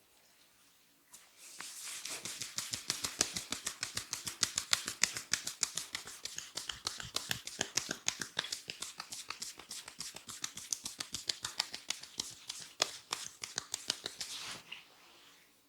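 Rapid rhythmic strikes of a masseur's hands on a person's head during a head massage, several sharp taps a second. They start about a second in and stop shortly before the end.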